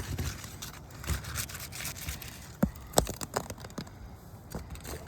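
Roof shingle seals being broken: the sealed tabs are pried apart with a crackling, tearing sound and several sharp snaps, the loudest about three seconds in.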